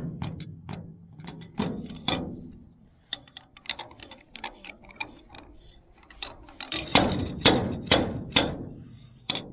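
Metal clinks and knocks on a car's steel roof as a screw-in dent puller is worked into drilled holes in a dent. A quicker run of light ticks sits in the middle, and four hard, ringing strikes about half a second apart come near the end.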